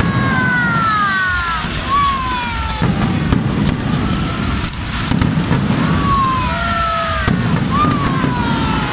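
Fireworks display going off: many overlapping whistles that fall in pitch, over sharp crackles and a dense low rumble of bursts that swells a few times.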